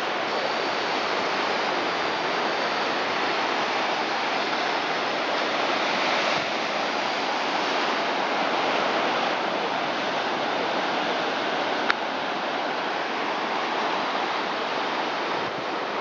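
Steady noise of a stormy sea's surf breaking on rocks below, with one short click about twelve seconds in.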